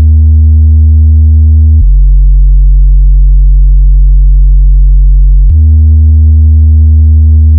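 Very loud, sustained synthesized bass test tone from a DJ sound-check track for testing speakers' bass. The tone drops to a deeper pitch about two seconds in and steps back up to the first pitch near five and a half seconds.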